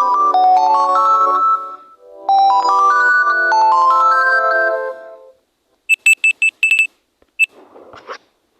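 Android ringtone or alarm sound: a synthesized melody of stepped rising notes, played twice and stopping about five seconds in. After it come a quick run of short, high beeps and a brief noisy sound near the end.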